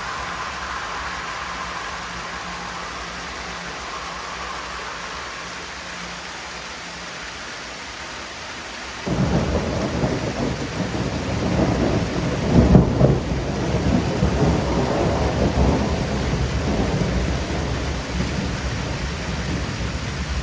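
Thunderstorm: steady rain, then about nine seconds in a thunderclap breaks into a long rolling rumble of thunder that swells to its loudest a few seconds later and keeps rumbling to the end.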